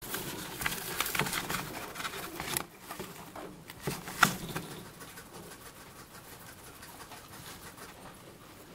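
White-bellied (African pygmy) hedgehog rustling and scratching through wood-shaving bedding around a cardboard toilet-paper roll: busy crackling for the first couple of seconds, one sharp tap about four seconds in, then fainter rustling.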